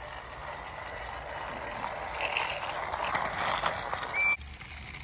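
Motorized toy train running on plastic track: a steady whirring rattle that grows louder and then stops suddenly about four seconds in, just after a short high beep.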